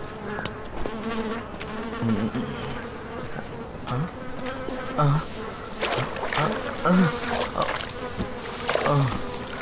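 Flies buzzing, single flies passing close and fading again now and then over a steady drone, with a rustle of tall grass being pushed aside in the second half.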